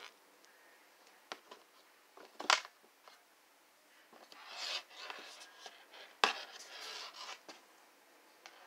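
Handling noise as a patent-leather sneaker is moved about and turned over on its shoebox. There are a few sharp knocks, the loudest a couple of seconds in, and two stretches of scraping and rustling in the second half.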